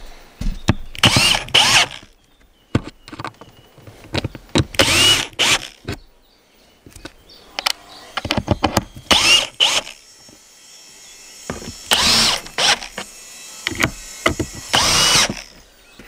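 Cordless drill-driver driving wood screws down into a plywood lid in about six short runs of motor whine, some in quick pairs. Clicks and knocks of handling the screws and the drill come between the runs.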